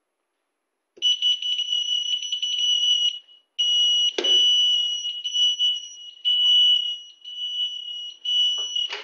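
Motorized supermarket trolley's alert sounding a steady high-pitched electronic tone. It starts about a second in, breaks off once briefly and stops near the end, with a click about four seconds in. The alert signals that the trolley is in manual mode with the ignition key in the switch.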